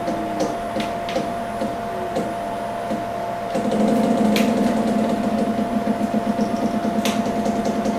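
Sixi robot arm's stepper motors running as the joints move, a steady motor whine with scattered clicks. About halfway through a louder, rapidly pulsing hum comes in as more joints drive at once.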